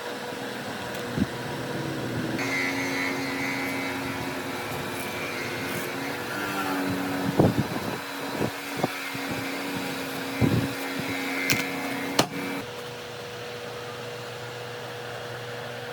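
A small electric motor, likely a workshop power tool, runs with a steady whine for about ten seconds, then stops. Several sharp knocks come in its second half. A steady fan-like hum continues underneath.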